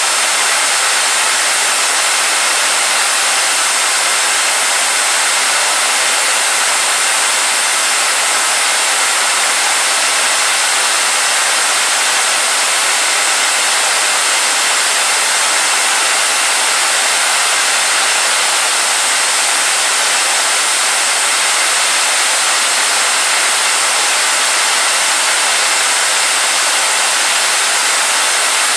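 WR27-1 small gas turbine APU engine running steadily at full speed on a test stand: a loud, even, high-pitched rushing hiss that holds without change.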